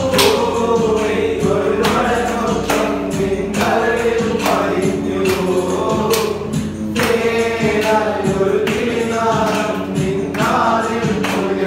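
Music: voices singing a song together over a steady beat of sharp percussive strokes.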